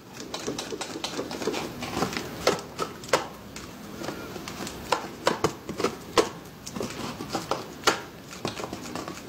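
Stiff paper puppet head rustling and crinkling as it is handled, with irregular sharp paper clicks and snaps, several a second.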